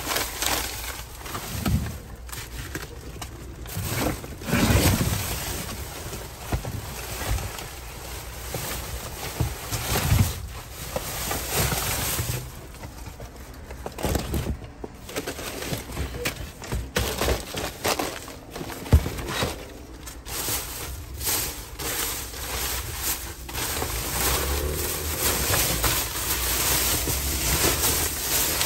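Plastic garbage bags crinkling and rustling and cardboard boxes and plastic crates being shifted and knocked as a gloved hand rummages through a dumpster, with a low rumble of wind on the microphone.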